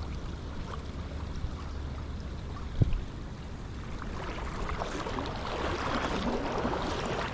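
River water rushing and splashing as a person wades upstream through a shallow stream, the splashing swelling over the last few seconds, with one dull bump about three seconds in.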